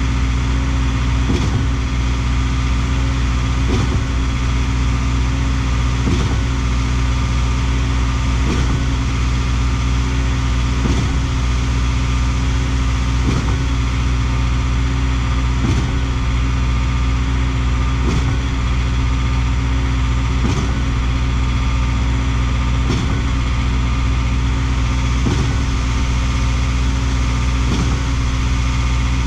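Schwing trailer concrete pump running steadily, with a knock about every two and a half seconds as its pistons change stroke, pushing concrete into the line while it primes.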